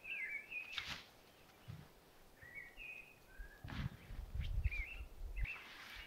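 A pop-up camouflage hide being handled and set up, with a few knocks and a heavier low thudding rumble between about four and five and a half seconds in. Throughout, a small bird gives short twittering chirps.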